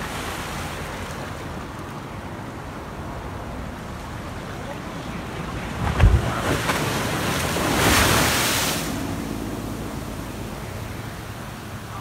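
Strong waves from a rough sea pounding a concrete seawall over steady surf. About six seconds in, a wave hits the wall with a sharp thud, then a loud rush of spray and water swells for a couple of seconds and dies away.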